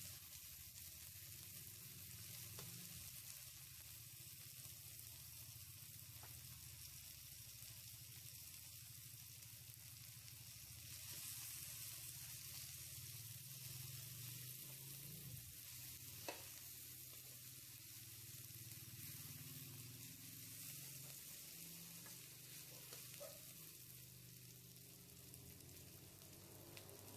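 Onion, garlic and tomato sizzling faintly in a steel wok as they are stirred with a slotted metal spoon, with one sharp tap of the spoon on the pan about halfway through.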